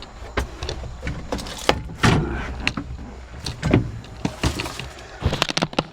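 JCB backhoe running, with irregular clunks and knocks from the bucket and boom as it digs into wet pasture soil.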